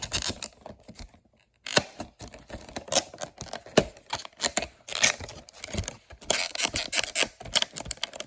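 Clear plastic blister protector being handled and pressed shut around a carded die-cast car: a run of sharp plastic clicks and crackles, with a short pause about a second in.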